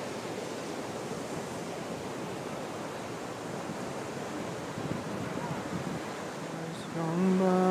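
Ocean surf breaking on the beach, a steady wash of wave noise with some wind on the microphone. Near the end a loud held, pitched note starts and rises above the surf.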